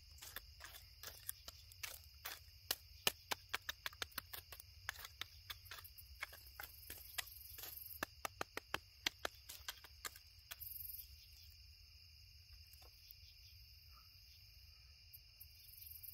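A stick poking and breaking up glowing campfire coals: a run of sharp, irregular clicks and crunches, several a second, that thins out after about ten seconds. Insects trill steadily behind it.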